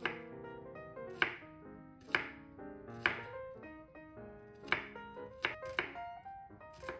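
Chef's knife slicing a red onion on a wooden cutting board: about eight sharp knocks of the blade on the board, unevenly spaced, roughly one a second. Background music plays throughout.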